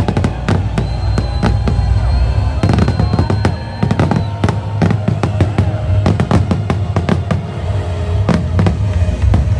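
Aerial fireworks going off in a rapid barrage of sharp bangs, several a second, over a music soundtrack.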